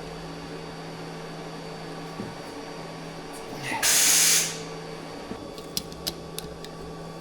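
Steady machine hum, with one loud short hiss of air about four seconds in, followed by a few light clicks.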